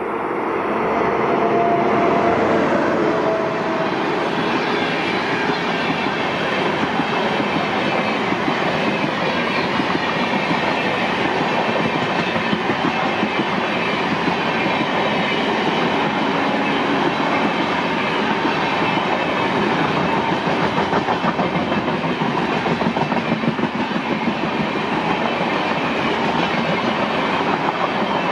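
WAP-7 electric locomotive and its passenger coaches passing at speed, growing louder over the first couple of seconds as the locomotive draws level. Then a steady, loud rolling rumble with a rhythmic clickety-clack of the coach wheels on the rails.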